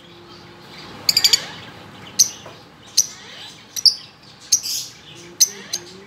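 A flock of Fischer's lovebirds in a cage giving short, shrill chirps. A quick run of calls comes about a second in, then single calls follow every half second to a second.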